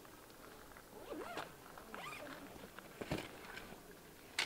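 Nylon camping gear bag being unzipped and rummaged: fabric rustling and zip noise, with a sharp click about three seconds in.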